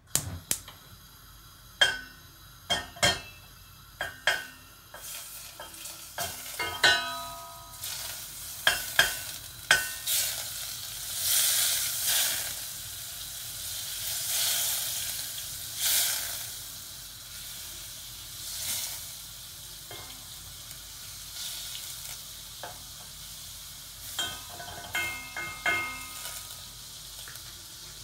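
Wooden spoon knocking and scraping in a stainless steel pan while stirring margarine that sizzles as it melts. Sharp, briefly ringing knocks come in clusters over the first ten seconds and again near the end, with a hissing sizzle in between.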